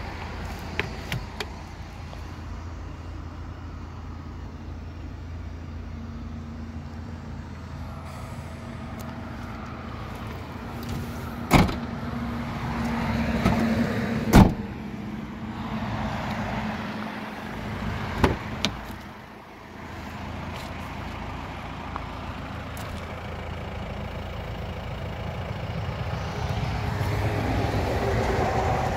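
Clicks and knocks from working the boot fittings and tailgate of a Volkswagen Touran: a few light clicks near the start, then three sharp knocks in the middle, the loudest about halfway through. A steady low rumble runs underneath.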